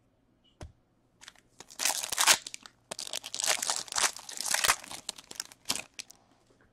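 A foil trading-card pack wrapper being torn open and crinkled by hand, in a run of crackly tearing and crumpling sounds lasting about five seconds. A single click comes just before it.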